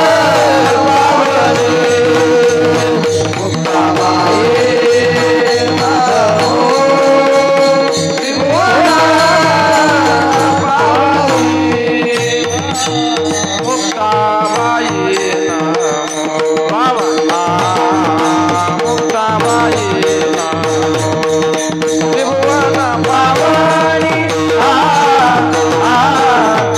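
Devotional singing: a male singer holding long, gliding melodic phrases over a steady drone, with tabla-like drum accompaniment.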